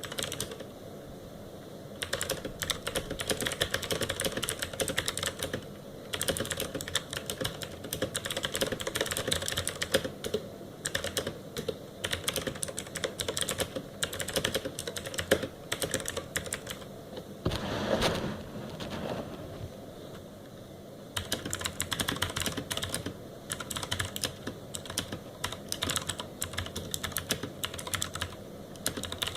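Keyboard with ABS keycaps being typed on: fast, continuous key clacks, pausing briefly a few times, with a short duller noise partway through.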